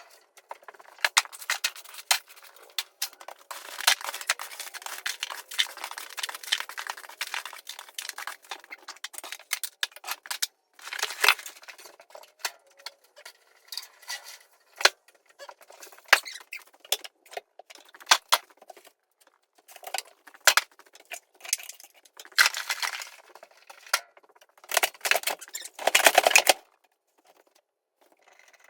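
Hand demolition work in a small room: irregular knocks, scraping and clattering as material is pulled and broken off, with the loudest crash near the end.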